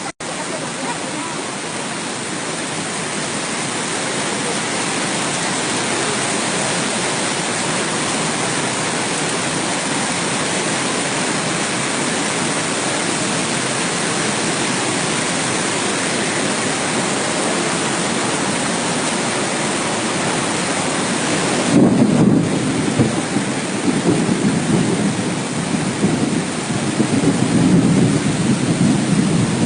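Loud, steady rush of the Lembah Anai waterfall in flood, its water pouring down heavily. From about 22 seconds in the noise grows louder and lower, with an uneven rumbling.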